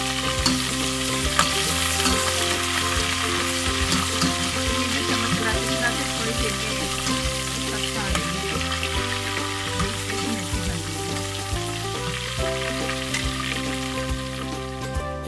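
Hot oil sizzling steadily as a tadka of chopped garlic, whole dried red chillies and chopped greens fries in a steel pan, stirred with a slotted steel spoon.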